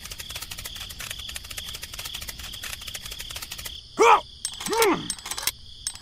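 Crickets chirring steadily, with two short voice-like cries about four and five seconds in, each rising then falling in pitch.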